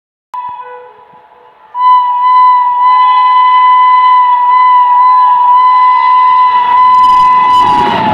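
WAP-7 electric locomotive's horn: a brief toot, then about two seconds in one long, loud, steady blast lasting about six seconds, which drops in pitch as the locomotive reaches the camera near the end. The rushing and rattling of the train at speed rises under the horn near the end.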